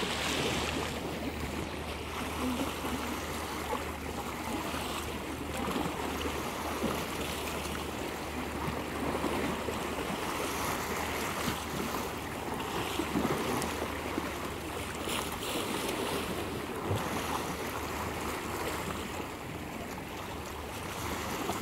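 Small waves of a calm sea washing and lapping, an even rushing noise with a steady low hum underneath.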